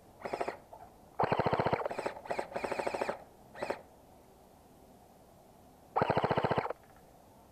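Airsoft guns firing on full auto: several bursts of rapid, evenly spaced shots, the longest about a second in and another at about six seconds, with short bursts between.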